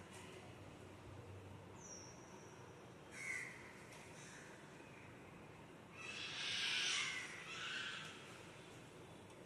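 Plastic Skew twisty puzzle being turned by hand: plastic clicking and scraping in short bursts, one brief burst about three seconds in and a longer, louder spell from about six to eight seconds.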